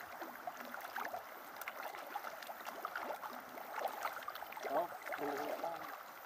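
Scattered small splashes and lapping of pond water, with a short distant call about five seconds in.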